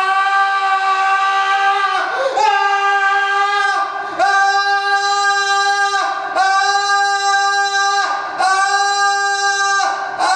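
A voice singing one loud, steady, high note over and over, each about two seconds long with short breaks for breath, the pitch the same every time.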